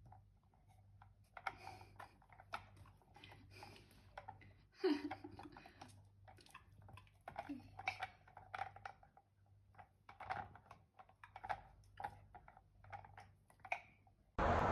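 Dachshund chewing and crunching food, a quiet, irregular run of sharp crunches and clicks several times a second.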